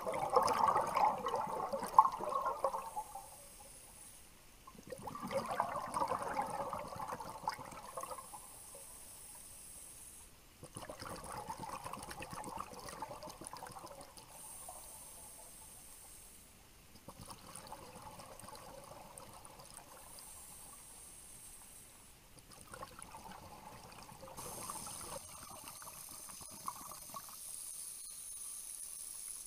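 Scuba diver's exhaled bubbles bubbling underwater, coming in bursts every five or six seconds with quieter gaps between as the diver breathes in through the regulator; the first two bursts are the loudest.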